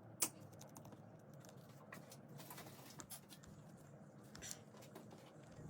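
Faint, scattered light clicks and taps, the sharpest about a quarter-second in, over a low steady hum.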